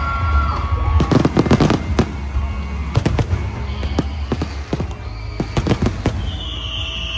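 Fireworks going off in rapid clusters of sharp bangs and crackles over a steady low bass from music. A high tone slowly falls in pitch near the end.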